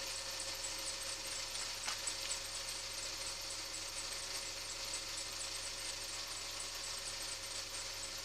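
Mercedes-Benz M270 four-cylinder petrol engine idling after a cold start, with a fast, even, high-pitched 'chi-chi-chi-chi' ticking over the steady running, the abnormal noise the owner is recording. A single faint click about two seconds in.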